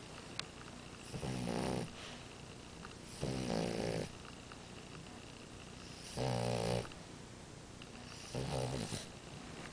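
French bulldog snoring: four snores, each under a second long, coming about every two to three seconds.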